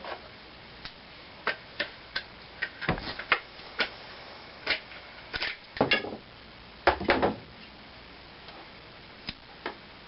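Irregular sharp clicks and knocks of a screwdriver and air rifle parts being handled as the stock screws of a Crosman Phantom air rifle are taken out, with a few heavier knocks in the middle.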